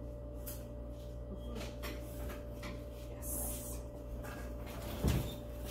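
Steady room hum with a few faint clicks and knocks, and a low thump about five seconds in.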